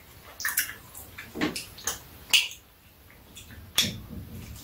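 Eating sounds: irregular short wet smacks and clicks of mouths chewing soft steamed rice cakes, along with fingers pulling the sticky cakes apart.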